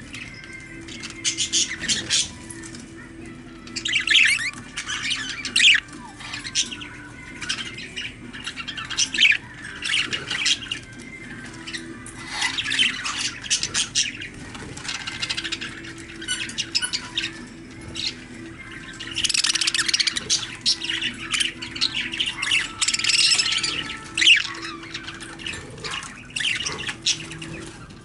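Pet budgerigars chirping and squawking in quick bursts, several birds chattering in clusters every second or two.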